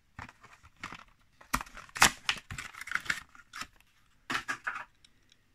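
Hot Wheels blister card being opened: the plastic blister crackles and the cardboard tears in an irregular run of sharp rips and crackles. The loudest comes about two seconds in and a last burst comes near the end.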